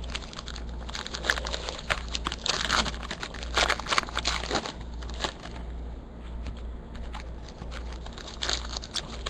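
Foil trading-card pack wrappers crinkling and crackling as the packs are handled, with irregular sharp crackles throughout.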